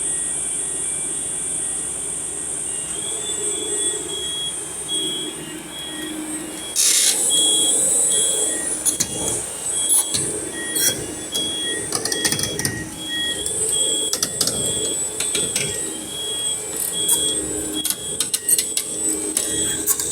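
Machinery running steadily, with repeated sharp metallic knocks and clanks from about seven seconds in.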